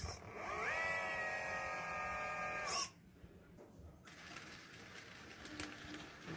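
A small electric motor spins up with a rising whine, runs at a steady pitch, then cuts off suddenly nearly three seconds in. Faint noise and a few light clicks follow.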